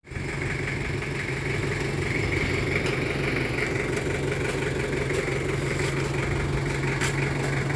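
Small box truck's engine idling steadily close by, a constant low hum.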